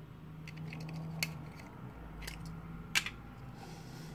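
Small plastic clicks and light scraping as a LiPo charger's circuit board is worked out of its plastic case, with a few sharp snaps and the loudest one about three seconds in.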